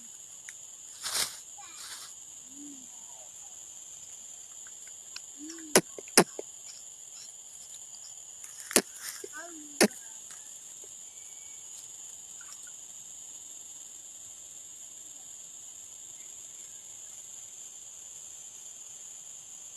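Steady insect chorus, a continuous high-pitched trilling drone. Four sharp loud clicks or knocks stand out in the middle, with a couple of softer rustling bursts near the start.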